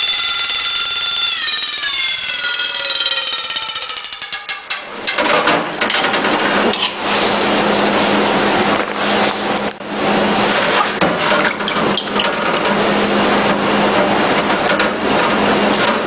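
Wind-up mechanical alarm bell ringing under water. For the first few seconds it gives a clear ringing tone with many overtones that slides down in pitch. From about five seconds it turns into a dense rattling buzz over a steady low hum as it rings fully submerged.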